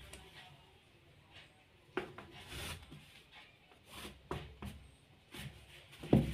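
Wooden measuring scale being shifted and slid over denim on a cutting table: soft rubbing and scraping, with a few light knocks as it is set down, the sharpest near the end.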